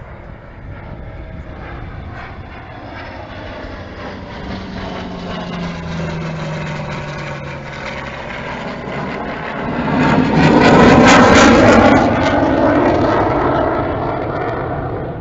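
Two aircraft flying a formation pass overhead. The engine noise builds, is loudest about ten to twelve seconds in, then fades as they fly away, with a low tone dropping in pitch midway.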